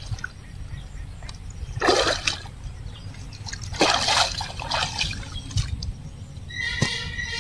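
Water splashing and sloshing as a person wades through a shallow pond and steps out onto the bank, with two louder splashes about two and four seconds in.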